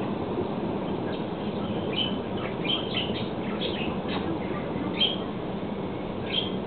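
Birds chirping in short high calls, about six times, over a steady low rushing noise from a running washing machine.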